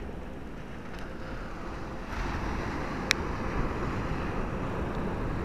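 Surf breaking on a sandy beach, with wind buffeting the microphone; the wash of the waves grows louder about two seconds in. A single sharp click sounds about three seconds in.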